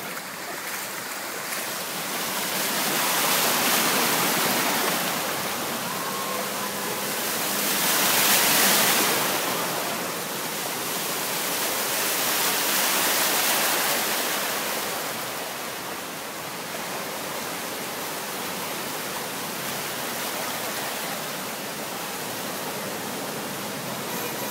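Heavy rain pouring onto a flooded street, with a steady rushing hiss of rain and moving floodwater. The rush swells louder three times before settling to an even level.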